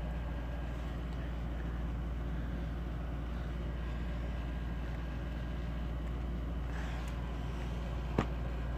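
Steady low background hum, with one sharp click about eight seconds in.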